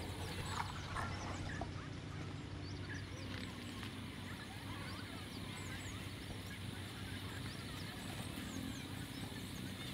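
Dawn bird chorus: many short chirps and whistles from several birds, over a steady low hum.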